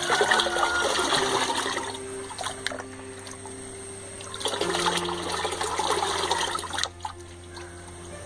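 Watery clay slurry sloshing and trickling through a sieve into a bucket in two bouts, one at the start and one about halfway through. Background music with held notes plays underneath.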